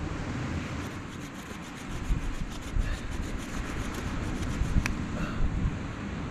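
Bow drill working: a wooden spindle spun back and forth by the bow, rubbing and grinding in a driftwood hearth board in a fast, even rhythm, one attempt to raise an ember by friction. A sharp click comes about five seconds in.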